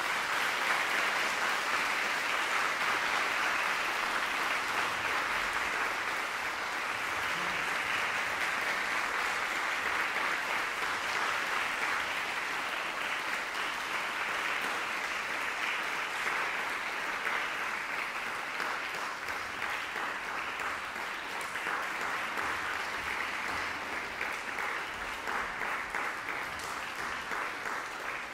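Audience applauding steadily at the end of a performance, easing off slightly near the end.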